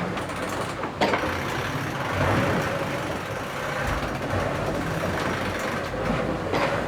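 Racing sailboat under way: steady rush of water and wind noise around the hull, with a sharp knock about a second in and another near the end.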